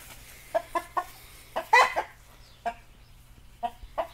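A bird giving short, sharp pitched calls: three quick ones, a louder and longer one, then a few more spaced apart.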